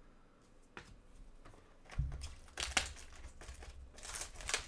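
Trading card packaging crinkling and tearing as it is opened by hand, with a soft thump about two seconds in and two louder bouts of crinkling.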